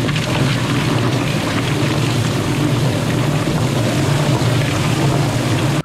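Poultry plucker running with a 15–20 lb turkey tumbling inside: a steady low motor hum under a dense rush of noise.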